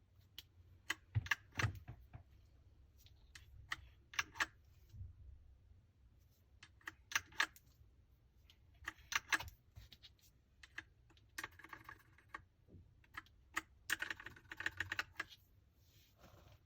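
Leaven H68 mechanical keyboard being typed on: scattered single keystrokes and short clusters of clicks, then two quicker runs of rapid typing in the second half.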